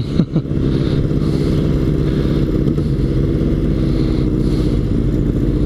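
A 36-horsepower motorcycle engine running at a steady pace under way, with heavy wind rumble on a helmet-mounted camera.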